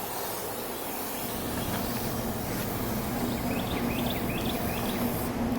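Steady outdoor background noise with a faint low hum and a few faint short chirps in the middle.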